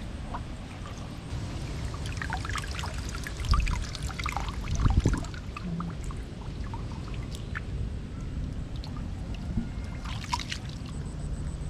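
Shallow water trickling and splashing, with many small splashes and louder ones about three and a half and five seconds in.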